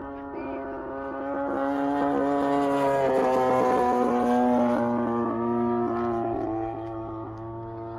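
Radio-controlled model airplane's engine running steadily in flight, growing louder as it passes closest around the middle, then fading as it flies away.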